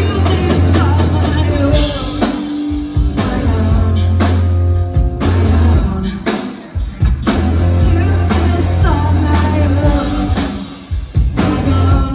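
Live rock band playing: electric guitars, bass guitar and a drum kit with repeated cymbal crashes over a heavy bass line, with a woman singing.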